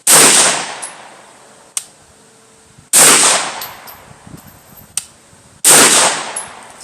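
Three shots from a 9mm pistol-caliber carbine, about three seconds apart, each with a short echoing tail, fired with hot loads. Light clicks are heard between the shots.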